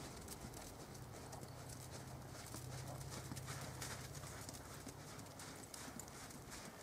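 A horse's hoofbeats thudding on the soft dirt of a riding arena as it works around a barrel. A faint steady low hum lies underneath and weakens about two-thirds of the way through.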